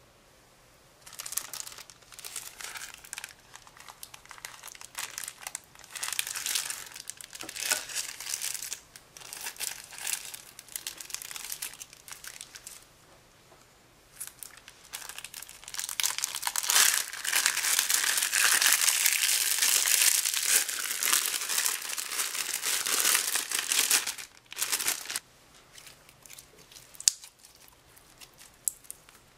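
Thin plastic bag crinkling and crumpling as it is handled, in bursts at first and then as a loud, continuous crackle for several seconds past the middle. Near the end there are only scattered soft clicks and squishes as clear slime is squeezed in the hands.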